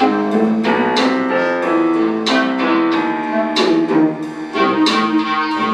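Instrumental background music led by piano, a melody of struck notes played at an even, unhurried pace.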